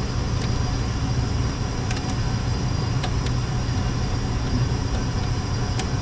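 Steady low hum and rumble of industrial machinery, with a few light clicks and ticks as wires are pushed into a slotted plastic wire duct.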